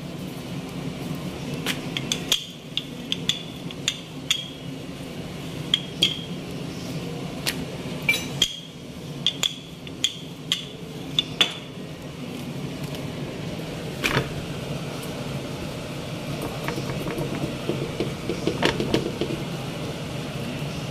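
Wooden rolling pin rolling out a stuffed aloo paratha on a floured countertop: a run of sharp knocks and clicks, several with a short high ring, through the first half, then only a few more. A steady low hum runs underneath.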